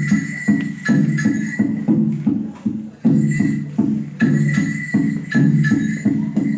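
Music with a steady, rhythmic beat of sharp strikes, about three a second, each carrying low pitched tones.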